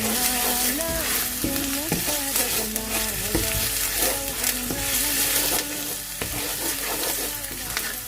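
Ginger-garlic paste sizzling as it fries in hot oil in a saucepan, with short clicks of stirring.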